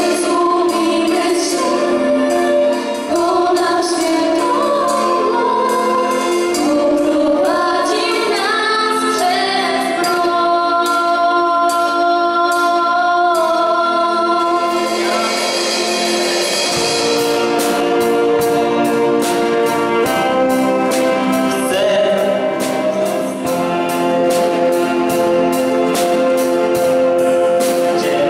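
Youth vocal group singing a slow ballad in Polish through microphones and a PA, with solo voices taking turns: a girl, then a younger girl, then a boy near the end. The song is over a musical accompaniment, and a steady beat with bass comes in a little past halfway.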